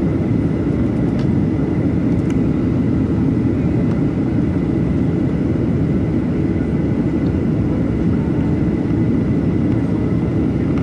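Steady cabin noise inside a Boeing 737-800 in flight, heard from a window seat over the wing: a deep, even rumble of engine and airflow, with a faint steady high whine above it.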